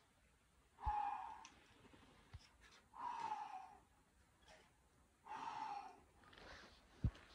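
A rock climber's loud, voiced exhalations with effort on a hard route: three falling 'haa' sighs, about two seconds apart. A short thump near the end.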